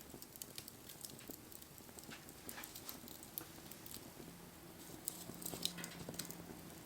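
Wood fire crackling, with scattered small pops and snaps at irregular intervals. A faint steady low hum comes in about four seconds in.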